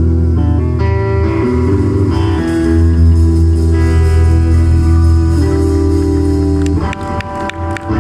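Live rock band playing an instrumental passage: electric guitar over bass guitar and held chords from a Roland VK-8 organ, with drums. About a second before the end, sharp, quick drum strikes come in and the overall sound dips.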